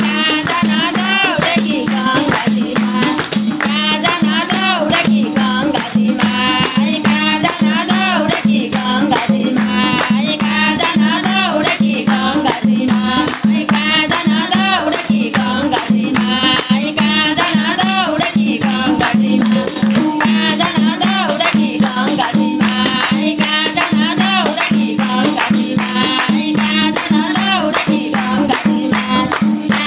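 A group of voices singing a Nepali Teej folk song together, with steady rhythmic hand clapping.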